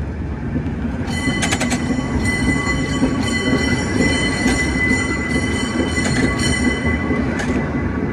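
San Francisco cable car running on its rails with a steady rumble. A high metallic squeal from the car starts about a second in and stops about seven seconds in, and there are a few clanks about one and a half seconds in.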